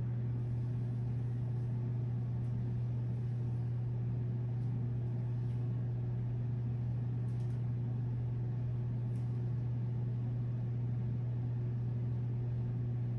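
A steady low electrical or mechanical hum holding one pitch without change, with a few faint ticks above it.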